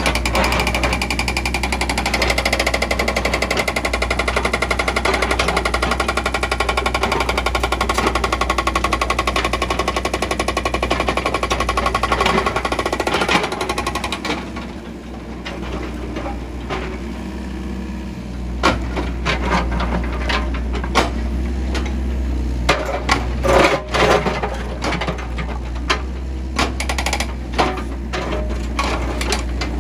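Case 695ST backhoe loader's diesel engine running with a rapid mechanical clatter for about the first half, then quieter with scattered sharp knocks.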